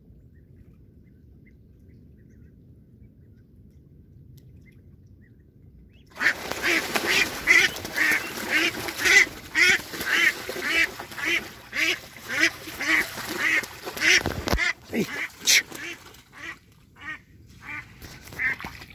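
Mallard hen quacking loudly and rapidly, about two quacks a second, with water splashing, starting suddenly about six seconds in. The quacks grow quieter and more widely spaced in the last few seconds.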